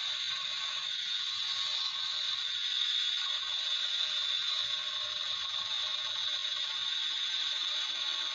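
Steady, even mechanical rattle and hiss of metalworking on a machine in a workshop, unchanging in level and pitch.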